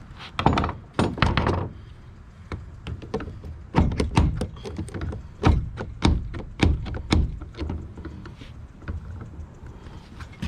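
Irregular knocks, taps and thunks of hand work on a fiberglass boat's bow rail and pulpit, coming in two busy spells and thinning out after about seven seconds.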